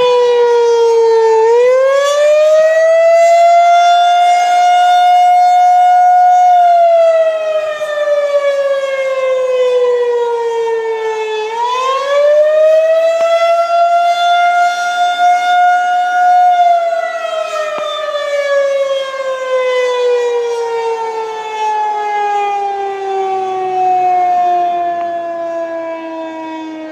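Federal Signal outdoor tornado warning siren sounding a wail during a test. The pitch rises quickly, holds high for a few seconds, then slides slowly down, twice over, and near the end falls further to a lower pitch than before.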